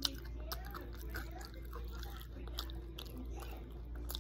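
A person chewing a bite of crispy hash brown close to the microphone: wet mouth clicks and crunching, with one sharp click right at the start, over a steady low hum.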